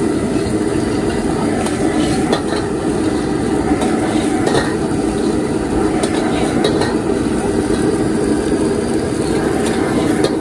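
High-pressure gas wok burner roaring steadily at full flame under a wok. A steel ladle scrapes and clacks against the wok over the roar while noodles are stir-fried.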